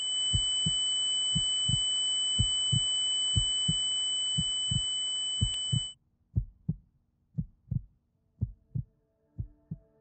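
A heartbeat sound effect: paired low thumps, about one beat a second. For the first six seconds a steady high-pitched ringing tone over a hiss sounds with it, then cuts off suddenly. A faint sustained drone begins near the end.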